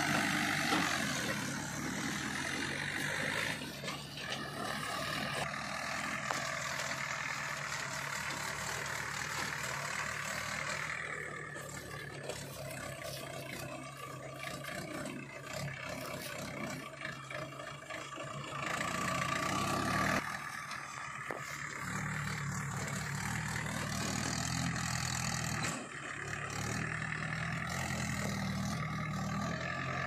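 Diesel engines of a JCB 3DX backhoe loader and a Mahindra tractor running steadily while the backhoe loads soil into the trolley, then a Mahindra tractor's diesel engine pulling a fully loaded soil trolley. The engine sound swells briefly and shifts about twenty seconds in.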